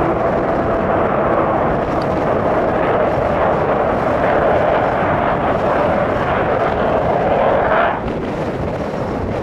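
Avro Vulcan XH558's four Rolls-Royce Olympus turbojets running as the bomber flies past. The noise is loud and steady. Near the end a whine rises in pitch, then the sound drops away suddenly.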